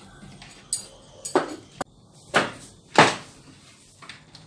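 Wooden parts of a handmade robot arm knocking and clacking together as they are handled and fitted at a round wooden joint: about five sharp knocks, the loudest two near the end.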